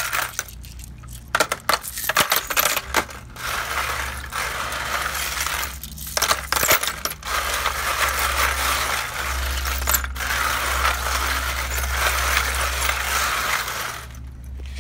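Many coins clinking and scraping together as a hand stirs them in a plastic basin of water, with water splashing. The clatter is dense and continuous, with brief pauses about half a second in, around the middle and near the end.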